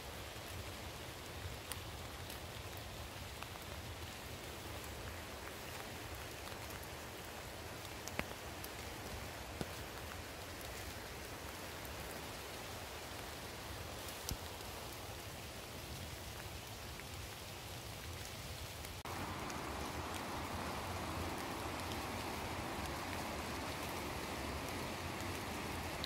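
Steady rain falling on forest leaves, with a few scattered louder drips. About two-thirds of the way through, the hiss suddenly becomes louder and fuller, and stays that way.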